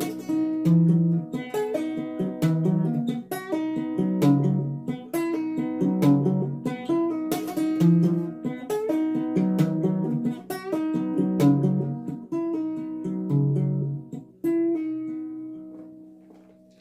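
Acoustic guitar played alone, picked notes in a repeating pattern over low bass notes; near the end the last notes are left to ring and fade away.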